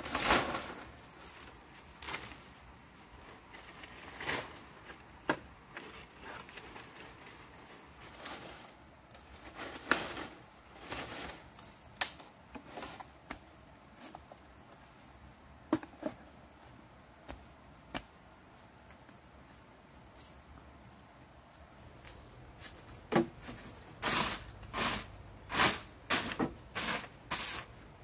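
Insects trilling steadily in a high, continuous tone, with scattered sharp knocks and clacks, which come in a quicker run near the end.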